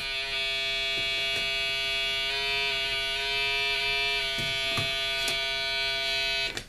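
Snap Circuits synthesizer giving a steady, buzzy electronic tone rich in overtones. Its timbre shifts a few times as fingers on the circuit change the current through the body, and it cuts off near the end.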